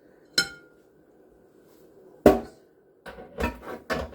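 Kitchen bowls and utensils being handled: a short ringing clink, a heavy knock a couple of seconds in, then a quick run of knocks and scrapes near the end.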